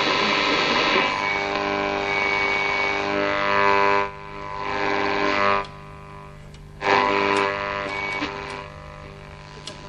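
Pionier valve radio being tuned between stations: loud buzzing interference with a steady pitched drone. It fades out briefly about four seconds in and again for about a second near the middle, and a few crackles come near the end. The uploader puts this interference down to energy-saving bulbs and switch-mode power supplies.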